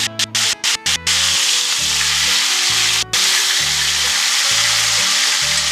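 Chicken thighs sizzling as they fry in hot olive oil in a cast-iron skillet, with the sound cutting out briefly several times in the first second. Background music with a low bass line plays under it.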